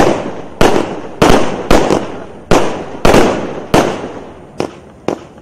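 A 0.8-inch, 100-shot consumer fireworks cake firing, its shots going off in quick succession about every half second. Each sharp bang trails off in a noisy tail that dies away, the tails longest in the middle and the bangs sharper and shorter near the end.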